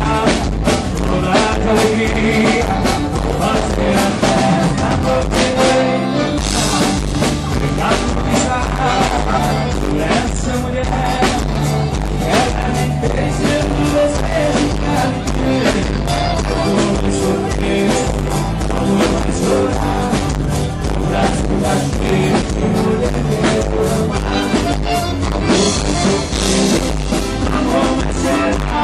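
Live band music with a steady drum beat, playing continuously at a loud, even level.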